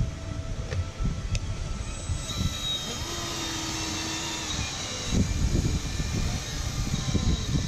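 Wind buffeting the microphone in uneven gusts. About two seconds in, a whining motor tone from a radio-controlled model starts and holds with small shifts in pitch.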